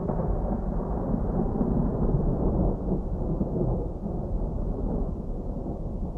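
Distant thunder: a low, continuous rolling rumble.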